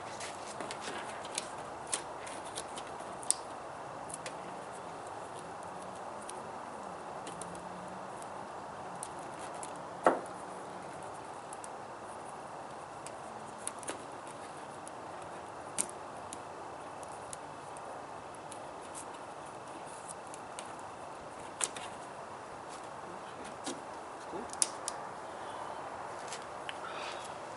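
Scattered small clicks and taps of hands fitting a remote-start hood pin switch and its wire at a car's hood hinge, over steady background noise; one sharper click about ten seconds in.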